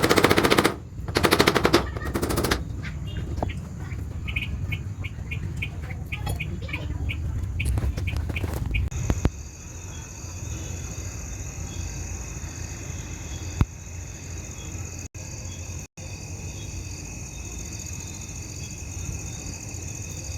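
Fast runs of sharp hammer blows on corrugated tin sheeting in the first two and a half seconds, then lighter spaced taps until about nine seconds in. After that comes a steadier background with faint bird chirps.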